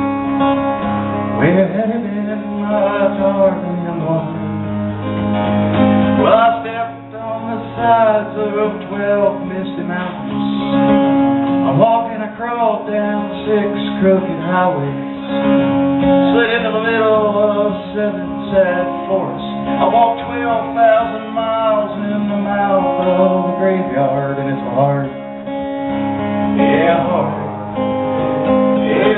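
Live acoustic guitar strummed steadily, with a man singing over it.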